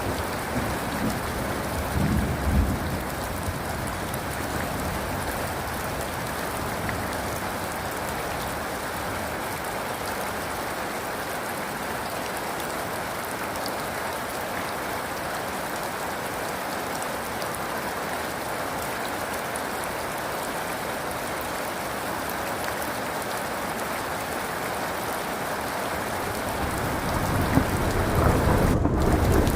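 Steady rain falling, with a brief low rumble of thunder about two seconds in and a thunder rumble building near the end.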